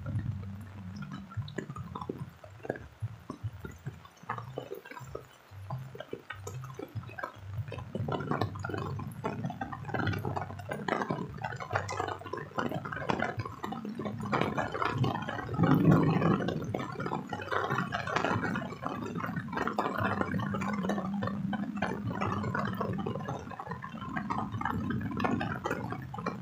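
Rain pattering and dripping close to the microphone, an irregular patter that is sparse at first and much denser from about a third of the way in. A brief low rumble stands out a little past the middle.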